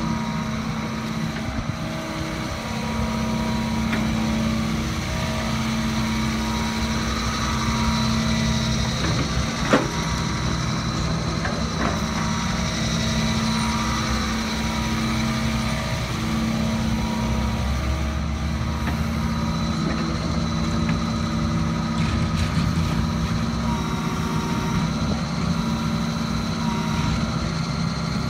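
John Deere 75D compact excavator's diesel engine idling steadily, with one sharp click about ten seconds in.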